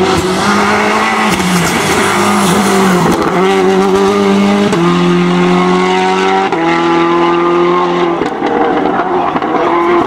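Citroën Xsara WRC rally car's turbocharged four-cylinder engine on hard throttle, pulling away through the gears with about four quick gear changes, each stepping the engine note to a new pitch.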